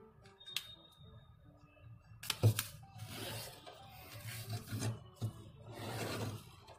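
Hands rubbing and creasing a folded sheet of origami paper flat: a run of papery swishes from about two seconds in, with one sharp crisp snap near the start of them.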